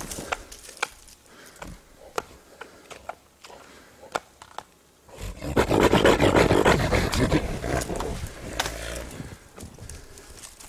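Wild boar pushing through deep snow: scattered sharp crunches and clicks for the first few seconds, then a loud, rough rush of noise lasting about three seconds as it charges up close, fading near the end.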